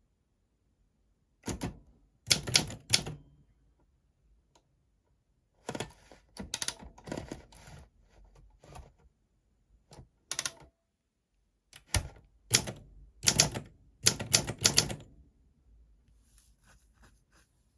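Keys of a 1959 Olympia SM4 manual portable typewriter striking the paper in short, irregular bursts with pauses between, the quickest run about twelve to fifteen seconds in.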